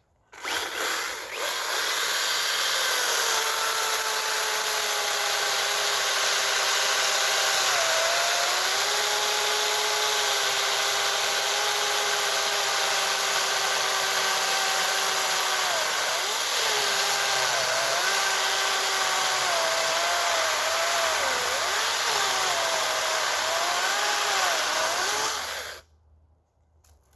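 Makita DUC355 dual-battery cordless chainsaw running and cutting through a log. Its motor pitch sags and recovers several times as the chain bites, and the saw stops suddenly near the end.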